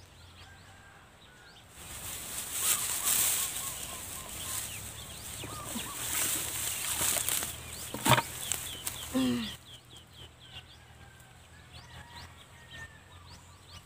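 Hands scrabbling and scraping in dry straw and soil, digging into a field crab's burrow: a dense rustle that stops about nine and a half seconds in, with one sharp knock about eight seconds in.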